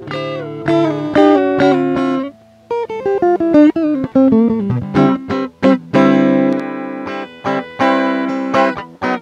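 Guitar played through an iRig with no effects added, giving its raw, dry tone. Picked single notes and strummed chords, with a short pause a little past two seconds in and longer ringing chords near the end.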